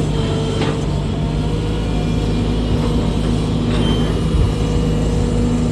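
Diesel engine of a Sumitomo hydraulic excavator running at a steady speed.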